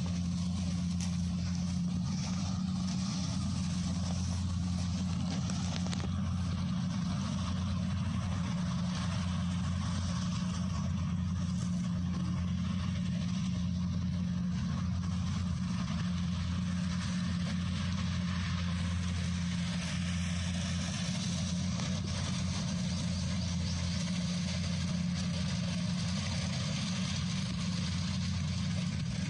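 Kubota combine harvester's diesel engine and machinery running steadily under harvesting load, a constant low drone that holds the same pitch throughout.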